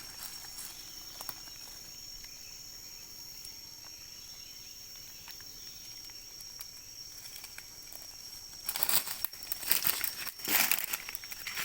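A steady, high insect drone over quiet forest ambience, then from about nine seconds in, loud irregular rustling and crackling of dry leaves and undergrowth.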